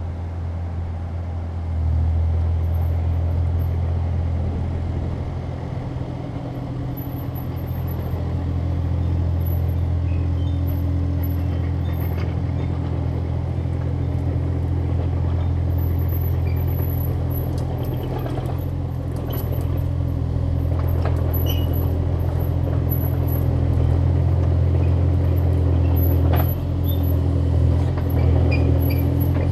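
Excavator engine running with a steady low drone, getting louder about two seconds in, with a few faint clicks over it.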